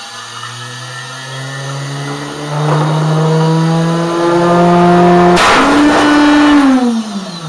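Router motor whining as it spins a vinyl record up to speed, the pitch rising in steps. About five seconds in the record shatters with one sharp crack, and the motor's whine then falls away as it winds down.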